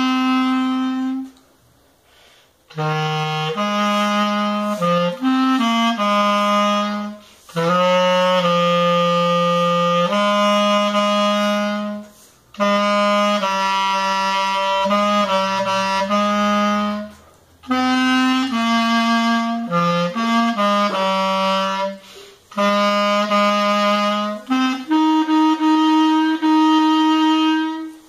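Buffet Crampon Evette alto clarinet in E-flat, ebonite-bodied, playing a slow hymn melody solo. Long held notes are grouped into phrases, with short pauses between them.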